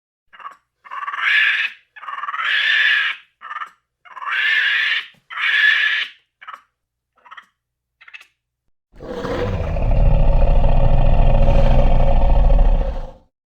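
Monkey calls: a string of short, breathy cries over the first eight seconds, then one long, loud, low roar lasting about four seconds.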